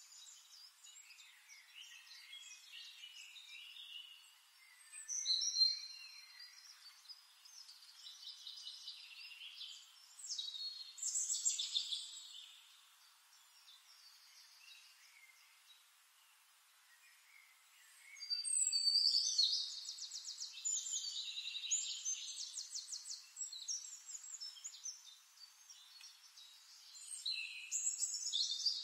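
Birdsong: high chirps and quick trills in irregular bursts, the busiest stretch a little past the middle.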